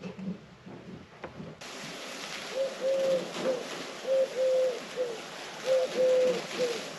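A dove cooing: a three-note phrase, short, long, short, sung three times at an even pace, starting about a second and a half in.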